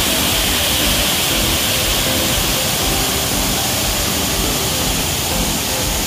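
Hiji Ōtaki waterfall pouring into its rocky pool: a loud, steady rush of falling water.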